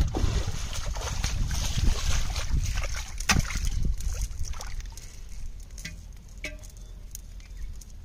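Shallow pond water sloshing and splashing as people wade and work a cast net, with a few sharper splashes. It grows quieter about halfway through.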